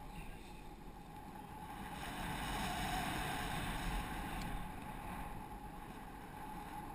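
Wind rushing over the camera's microphone during a paraglider flight, a steady noise that swells a little in the middle and eases again.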